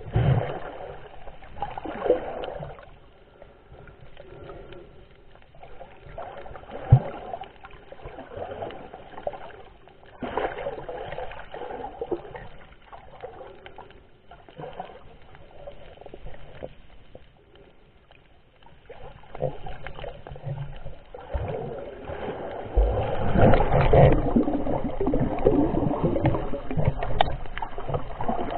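Muffled water sloshing and gurgling against an underwater camera, rising and falling irregularly, with a few knocks and a louder stretch near the end.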